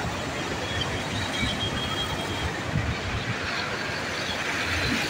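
Steady rushing noise of wind and a distant rear-engined regional jet on approach, growing a little louder near the end.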